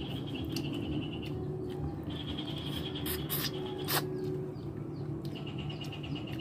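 Trains of rapid, high-pitched chirping, each lasting about a second and coming back every couple of seconds, over a steady low hum, with a few sharp clicks, the loudest about four seconds in.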